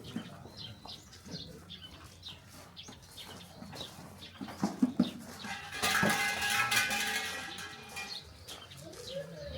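Small birds chirping. About halfway there are a few sharp flapping strokes, then a loud drawn-out animal call that lasts about two seconds and fades.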